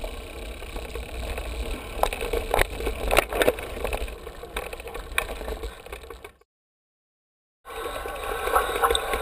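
Wind rumbling on the microphone, with scattered clicks and rattles as a mountain bike is ridden over rough ground. A little over six seconds in, the sound cuts out completely for about a second, then picks up again.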